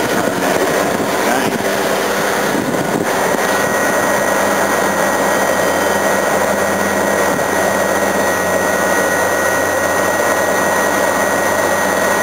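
York air conditioner running steadily: the compressor and fan give a constant whir over a low hum. A thin high tone comes in about three seconds in.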